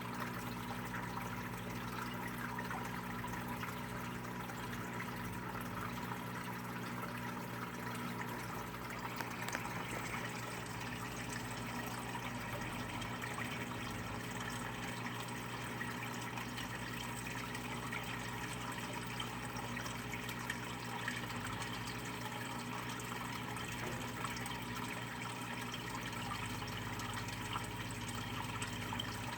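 Steady low electrical hum under an even rushing hiss, unchanging throughout.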